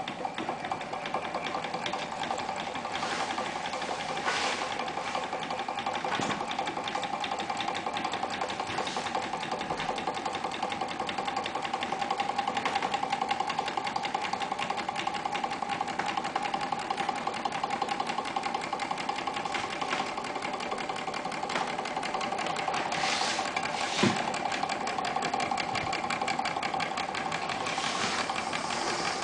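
Small model Stirling engine running steadily, its flywheel spinning fast: a fast, even mechanical rattle from the moving parts, with one sharp knock about 24 seconds in.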